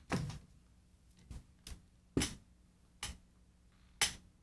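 About six sharp clicks and light knocks at uneven intervals, the loudest about two seconds in, from handling the camera as it is moved.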